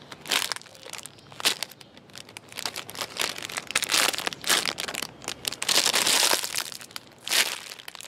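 Clear plastic wrapper crinkling as hands squeeze a foam owl-donut squishy through it: a fast run of sharp crackles, densest and loudest about six seconds in.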